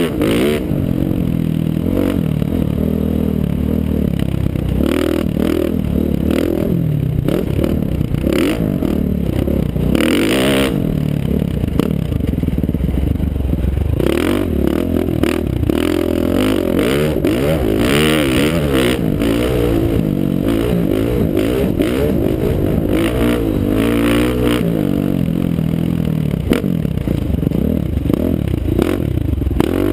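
2012 KTM 450 SX-F single-cylinder four-stroke motocross engine revving up and down continuously under hard riding, heard from a helmet camera with rushing wind and scattered knocks and clatter from the rough track.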